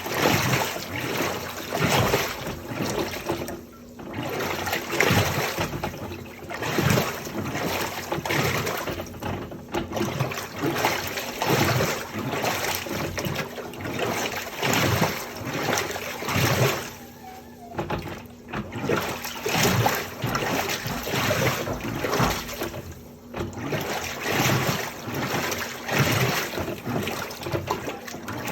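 Electrolux washing machine running a wash, water sloshing in the drum in uneven surges every second or two.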